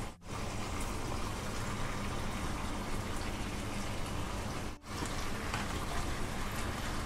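Melted butter sizzling in a frying pan with green chillies and a heap of freshly added ground spice masala, a steady even sizzle. It cuts out abruptly twice for an instant.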